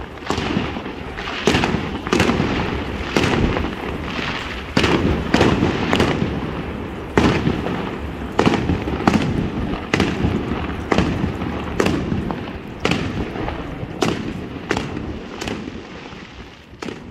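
Aerial fireworks bursting overhead: a series of sharp bangs about one a second, each with an echoing tail, growing fainter near the end.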